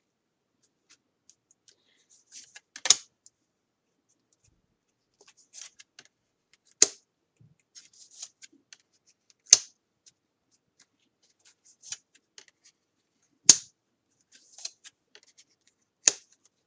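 Tarot cards being handled and laid out on a table: five sharp card snaps a few seconds apart, with quieter rustling of cards between.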